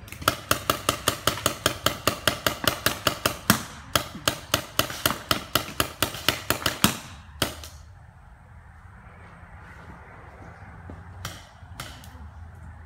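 Paintball markers firing in rapid strings of sharp cracks, about five shots a second, for roughly seven seconds with a short break partway, then a few single shots spaced apart.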